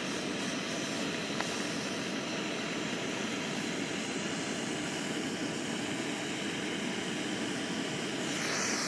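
A steady, even rushing noise with no clear pitch or rhythm.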